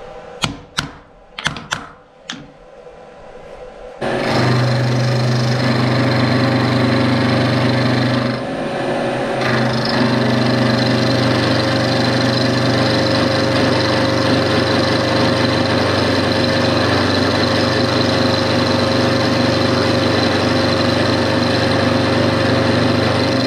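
A soft-faced mallet tapping a bright-steel bar several times to seat it down on parallels in a milling vise. Then a vertical milling machine starts up and runs steadily with a hum and a steady whine, its cutter facing off the end of the bar, easing briefly about a third of the way through.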